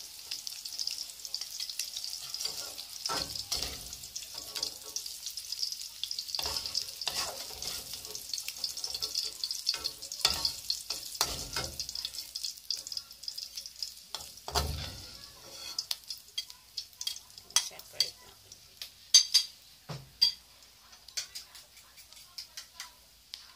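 Chopped ham, garlic and onion sizzling in hot oil in a steel wok while a metal slotted spatula stirs and scrapes against the pan. About two-thirds of the way through the sizzle dies down, leaving sharper spatula clicks and taps on the wok.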